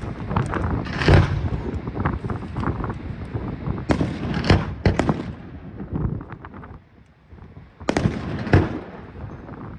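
Professional fireworks display: aerial shells firing and bursting in a rapid string of sharp bangs, with a short lull about seven seconds in.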